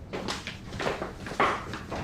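Footsteps walking at an even pace, about two steps a second.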